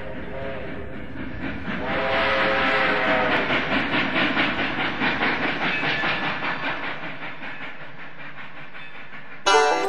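Train whistle sounding a chord of several tones over a running train, then a fast, rhythmic clatter of wheels on the rails. Banjo music comes in sharply just before the end.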